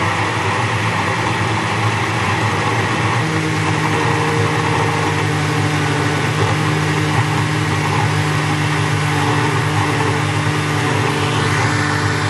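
Countertop blender motor running steadily at full speed, churning a thick mix of pumpkin and okra with water, the lid held down by hand.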